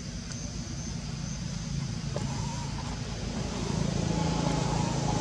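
A motor vehicle's engine running steadily as a low rumble, growing louder about two thirds of the way through.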